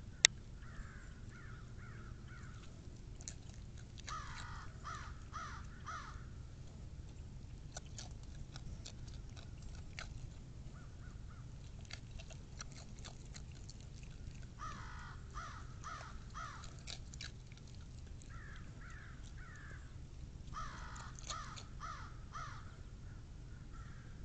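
Crows cawing in about five runs of several quick caws each, scolding. Between them come scattered sharp clicks and crunches as a red fox eats potato chips from a steel bowl, and one loud sharp click just after the start is the loudest sound.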